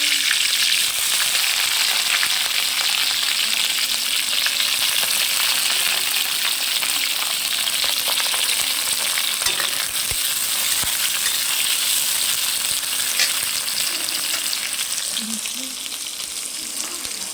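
Onion, green chillies and fenugreek sizzling as they fry in hot oil in a pan, with a spoon stirring and now and then clicking against the pan. The sizzle eases a little near the end.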